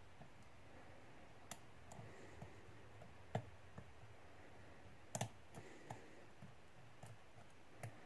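Single pin picking in the pin-tumbler core of a Master Lock 410 lockout padlock, a hook pick probing the pins under tension. Faint, irregular clicks, the loudest a little over a third of the way in and a close double click about two-thirds through.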